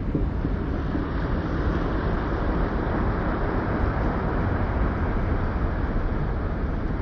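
Underwater ambience from the deep sea: a steady, deep wash of water noise with no distinct calls or events.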